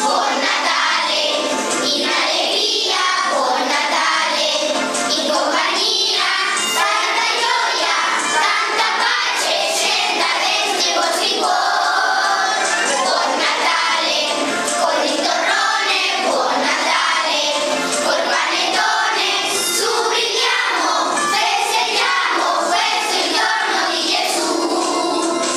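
A group of schoolchildren singing a Christmas song together in chorus.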